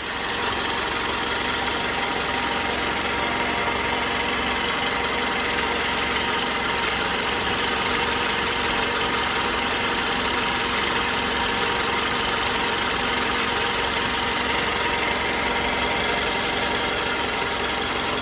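Toyota Camry engine idling steadily, with an abnormal steady whining noise from the alternator carrying over the engine's running. The owner takes the noise for a fault in the alternator.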